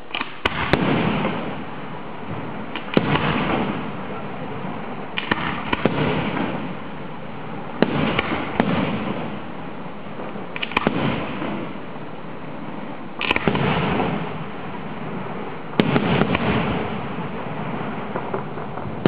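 Aerial firework shells bursting: about ten sharp bangs, two to three seconds apart and some in quick pairs, each followed by a fading rumble.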